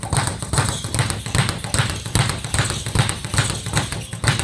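Leather speed bag being punched in a fast, steady rhythm, knocking against the wooden rebound board above it several times a second.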